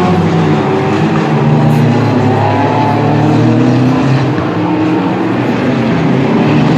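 Race car engines running hard at high revs, their pitch rising and falling.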